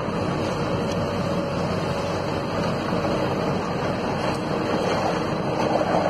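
Komatsu PC200F tracked harvester's diesel engine running steadily under working load as the machine swings round and lifts its boom and harvester head.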